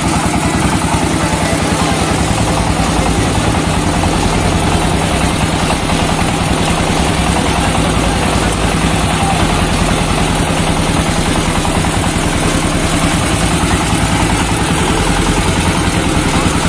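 Small single-cylinder diesel 'shallow machine' engine running steadily, belt-driving a screw mustard oil expeller.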